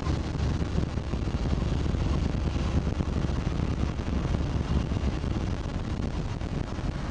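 Steady low rumble of a car's engine and tyres heard from inside the cabin while driving in slow city traffic.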